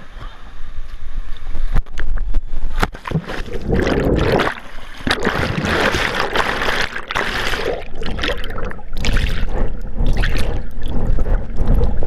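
A jump into a river pool: a plunge into the water, then the muffled rushing and bubbling of water around a camera that is underwater, with scattered knocks.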